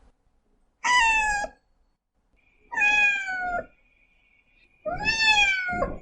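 Domestic cat meowing three times, about two seconds apart, each meow under a second long and sliding slightly down in pitch.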